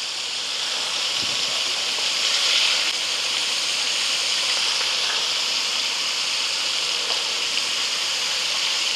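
Floured pieces of wild hog backstrap deep-frying in hot peanut oil in a wok, a steady sizzle.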